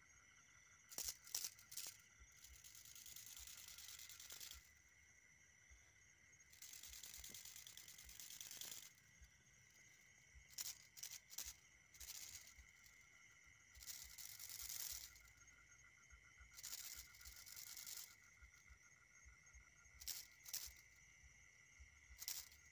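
Night insects chirring steadily in high tones. Every few seconds come bursts of high, hissy sound and clusters of sharp clicks, several of them lasting a second or two.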